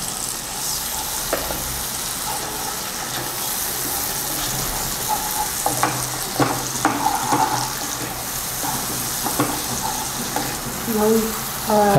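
Mustard paste sizzling steadily in hot oil in a non-stick frying pan, stirred and scraped with a wooden spatula, with a few sharp scrapes of the spatula against the pan.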